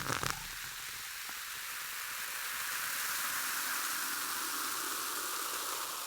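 A steady hiss that swells slightly and then eases, following the tail of a louder burst just at the start.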